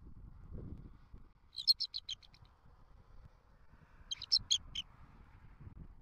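Bald eagle calling: two quick runs of high, sharp chittering notes, about seven in the first and five in the second, a couple of seconds apart.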